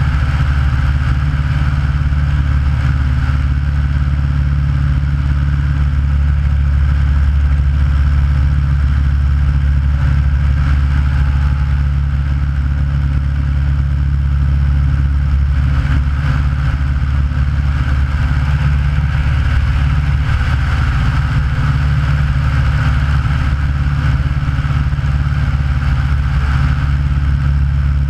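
Aeronca light plane's engine and propeller running steadily in flight, a loud, even drone heard from a camera mounted outside the airframe.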